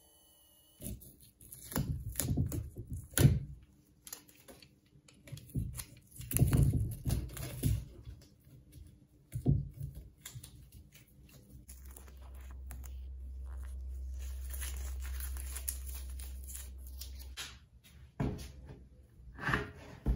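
Masking tape being cut and trimmed with a utility knife around the rim of a bench grinder's motor housing: irregular scraping, tearing and crinkling of the tape, with sharp knocks. A low steady hum runs for about six seconds in the middle.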